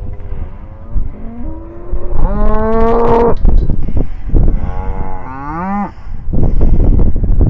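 Wagyu cattle mooing: three calls, the loudest about two seconds in and the last one bending down in pitch, with wind rumbling on the microphone.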